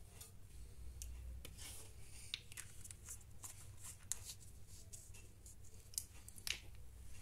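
Faint, irregular clicks and scrapes of a paintbrush working in a small plastic poster-paint jar held in the hand, over a low steady hum.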